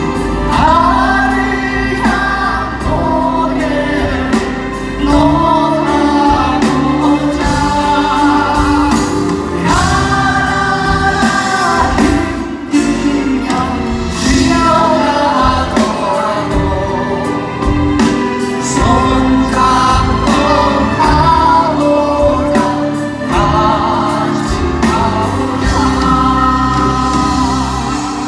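Live pop ballad performance: singers with a live band, several voices singing together over the accompaniment, heard from the audience through the hall's PA.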